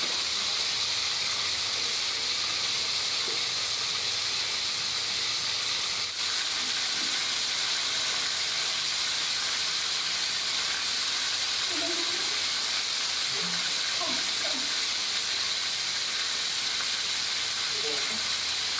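Chicken drumsticks frying in hot oil in a wok: a steady sizzle.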